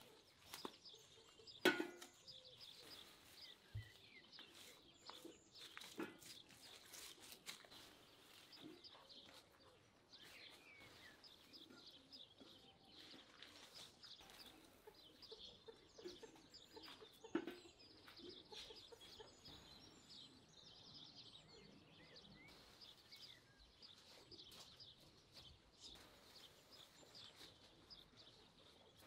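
Faint birds chirping, with a few sharp knocks, the loudest about two seconds in and another near seventeen seconds.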